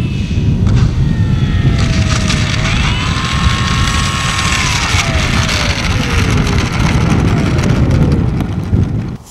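Electric radio-controlled aerobatic model plane rolling out on an asphalt runway after landing, over a steady low rumble. The motor's whine falls, rises again as it is throttled up to taxi, holds, then winds down as the plane stops. The sound drops away sharply near the end.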